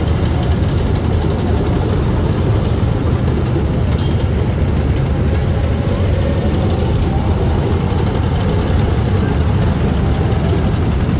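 A column of KAAV tracked amphibious assault vehicles driving past, their heavy diesel engines giving a steady, loud low rumble.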